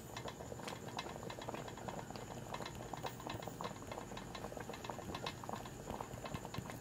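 Thick sauce simmering and reducing in a pan, with many small bubbles popping irregularly as it thickens.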